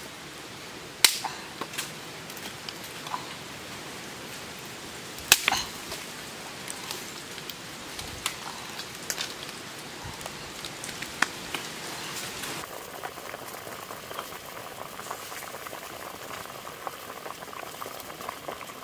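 Water bubbling at a boil in a wok of duck eggs over a wood fire, with a few sharp cracks, the loudest about a second in and about five seconds in.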